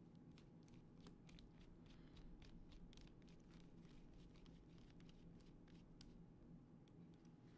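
Near silence: a low room hum with many faint, scattered little clicks and scrapes from hands handling small parts.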